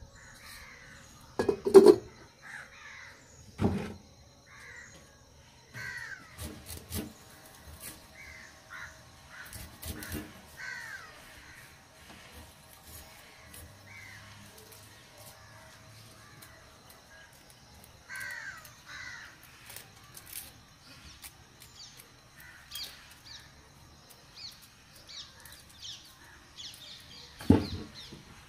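Crows cawing over and over in the background. A few sharp knocks of pots and utensils being handled stand out, the loudest about two seconds in and near the end.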